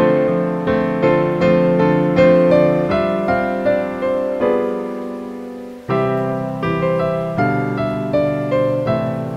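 Background music: a piano playing evenly paced notes, each one dying away. About five seconds in the sound fades almost out, then a fresh note starts it again.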